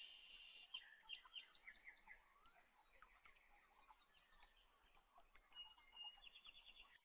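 Near silence, with faint bird chirps and quick high trills in the background.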